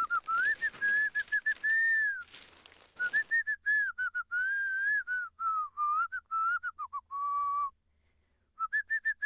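A person whistling a tune in short, bending notes, with newspaper crackling as it is unfolded during the first few seconds. The whistling breaks off briefly near the end, then picks up again.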